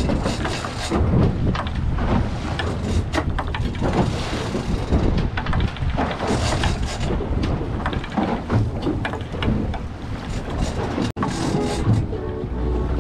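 Wind buffeting the microphone and sea water slapping and splashing against the hull of a small aluminium Stabicraft boat, with scattered knocks and clicks throughout.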